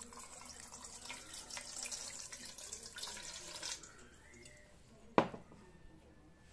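Water poured from a glass onto a small RC car in a stainless steel bowl, splashing on the car and the metal for about four seconds, then quieter. A single sharp knock about five seconds in.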